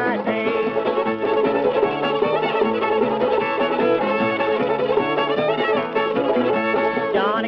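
Old-time string band on a 1928 recording, playing an instrumental passage with the fiddle leading over banjo and guitar backing. The sound is thin, with no treble above the old record's narrow range.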